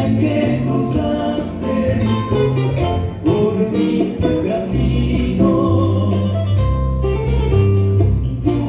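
Music with singing that accompanies a Campeche wedding folk dance (sarao), with held bass notes under a moving melody.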